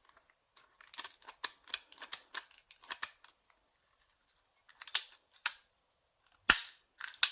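3D-printed plastic prop revolver being handled: a run of small light clicks, then after a pause several sharp snaps, the loudest about six and a half seconds in.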